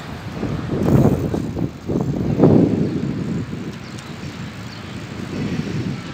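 Low rumbling outdoor noise of road traffic and wind on a phone microphone, swelling twice in the first half.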